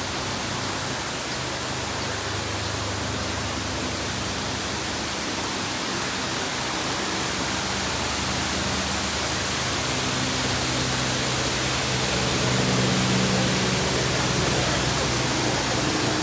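Steady rushing of water from a man-made waterfall, an even hiss with no breaks. A faint low hum runs underneath and grows a little stronger in the second half.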